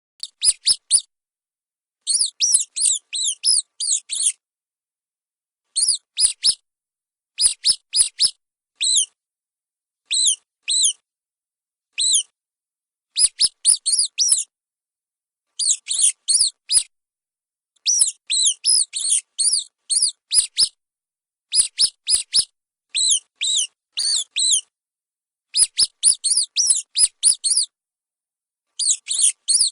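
Small mice squeaking: quick high-pitched squeaks in clusters of a few at a time, with short silent gaps between the clusters.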